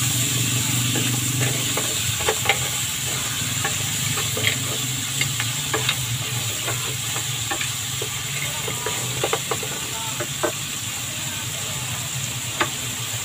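Seafood and vegetables sizzling in a nonstick pan over a gas flame, with a wooden spatula knocking and scraping against the pan in scattered clicks as the food is stirred.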